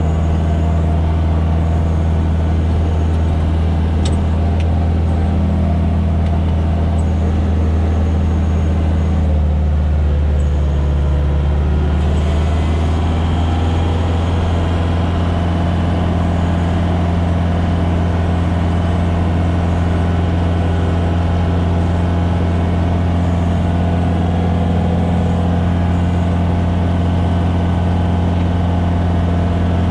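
Reform Mounty slope tractor's engine running steadily under load inside the closed cab, driving a front-mounted SIP Opticut 260 mower through grass. About ten seconds in the engine note dips briefly, then steadies again.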